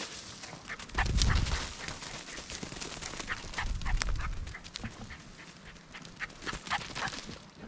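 Small dog's paws patter and crunch through dry leaves and wood chips as it runs fast, a quick run of short rustling crackles. Heavier low thumps come about a second in and again around four seconds in.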